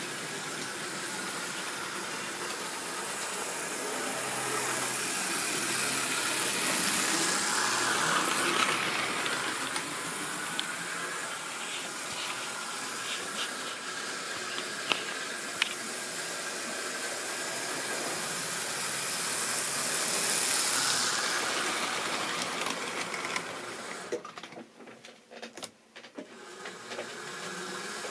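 Model railway trains running on the track: a steady rushing hiss of wheels and motor that swells twice as a train passes close, with a few sharp clicks in the middle. The sound drops away briefly near the end.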